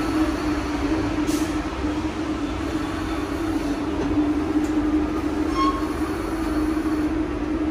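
MBTA Red Line subway train at the platform, giving a steady low hum, with a short click about a second in and a brief higher tone just past the middle.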